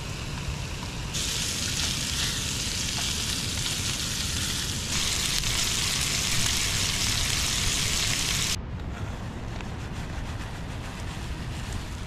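Italian sausage frying in a pan on a camp stove: a steady sizzling hiss that steps up in level twice, then drops away suddenly about eight and a half seconds in, leaving a lower background with a few faint clicks near the end.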